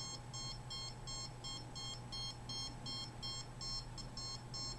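An RF meter beeping in quick, evenly spaced, high-pitched pulses, about three to four a second. The beeping signals a high reading.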